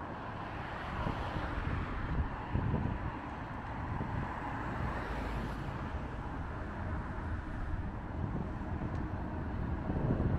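A tram running on its rails, with wind buffeting the microphone.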